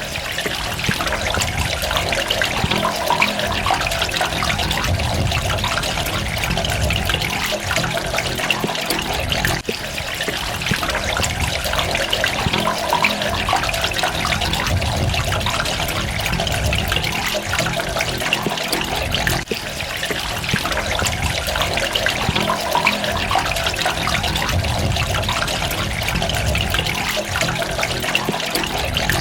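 Steady running, trickling water with fine splashing droplets, dipping briefly twice about ten seconds apart.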